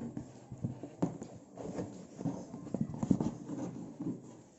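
Irregular knocks and taps of hands handling a cardboard appliance box.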